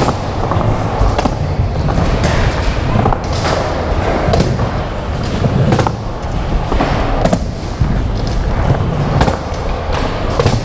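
Hard skateboard wheels rolling over a smooth concrete floor: a steady rumble broken by sharp, irregular clacks about once a second.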